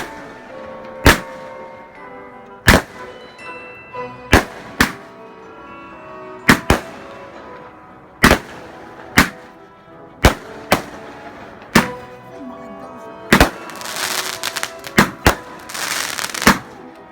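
Standard Skyfire multi-shot aerial firework cake firing its shots one after another, a sharp bang about every second. Crackling stars fill the last few seconds.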